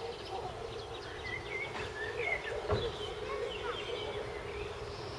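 Birds singing: a busy mix of short chirps and whistled notes over a steady low rumble, with one sharp click just under three seconds in.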